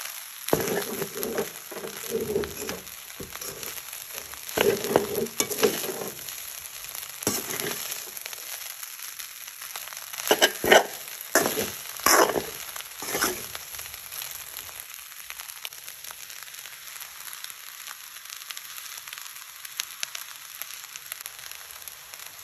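Metal spoon stirring and scraping spinach rice around a stainless steel pan on the heat, with several sharp clinks of the spoon on the pan around the middle. From about halfway it settles to a faint steady hiss.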